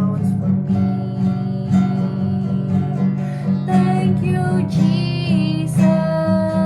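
Music with a strummed acoustic guitar playing steadily.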